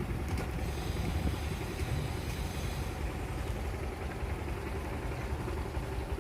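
Motor vehicle running with a steady low engine rumble and road and wind noise.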